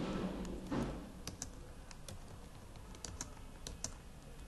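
Typing on a computer keyboard: a few faint, scattered keystrokes, several of them in quick pairs.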